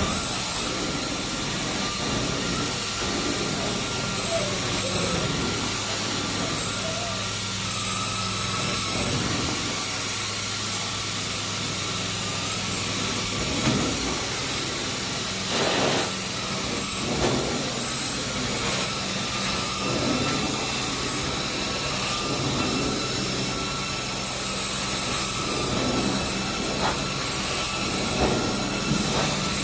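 Carpet cleaning machine running steadily with a constant hum and hiss, with brief swishing rushes every second or two.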